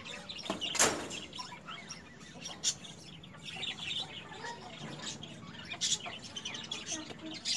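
Rooster and hen pecking food from a feeding bowl: sharp taps of beaks on the bowl, the loudest about a second in and again near six seconds, with bird chirps behind them.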